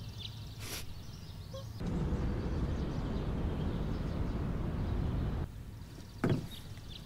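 Steady outdoor town ambience, an even low wash of noise with faint bird chirps, that drops away about five and a half seconds in; a single thump follows near the end.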